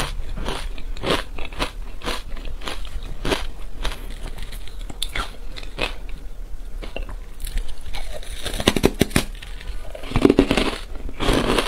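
Ice coated in matcha powder being bitten and chewed close to a clip-on microphone: crisp crunches about two to three a second, growing into a dense run of crunching late on, then a breathy puff as powder is blown out of the mouth near the end.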